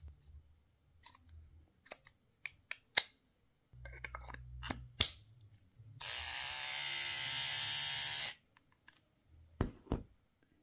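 Plastic clicks and snaps as the Philips SatinShave Essential's battery compartment is pushed shut. The battery-powered shaver is then switched on and runs with a steady buzz for about two seconds on its fresh battery, then stops. Near the end there are two knocks as it is set down.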